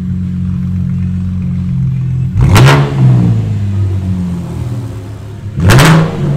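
2014 Chevrolet Camaro's 3.6-litre V6 with a muffler delete and custom 2¼-inch straight pipes, idling steadily, then blipped twice: a quick rev about two and a half seconds in and another near the end, each rising sharply and dropping back to idle.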